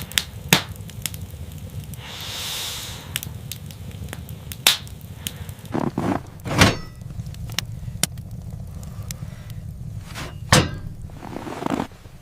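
Fire crackling with many sharp, irregular pops, over a low steady rumble. There is a brief hiss a couple of seconds in, and a few heavier knocks later on.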